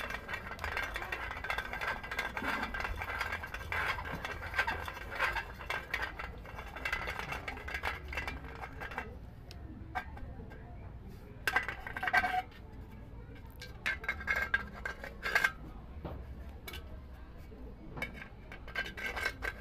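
Metal clinks and rattles from a homemade tin-can fishing reel and its round-bar bracket being handled, along with pliers. The clinks come thickly through the first half, then as scattered clicks with a few louder bursts.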